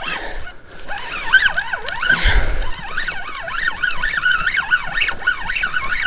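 A Shimano spinning reel whirring under load as a hooked white sturgeon is cranked in. Its pitch rises and falls rapidly with each turn of the handle and each pull of the fish. There is a low thump about two seconds in.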